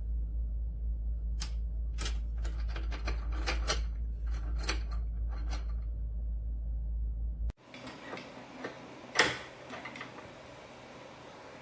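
Irregular light clicks and taps, as of small hard parts being handled, over a steady low hum. A little over halfway through, the hum cuts out to a quieter hiss with one sharp click.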